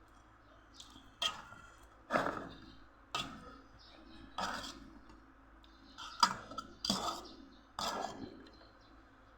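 Close-miked eating sounds from a seafood papaya salad: about seven separate sharp bites and crunches, irregularly spaced, each fading quickly.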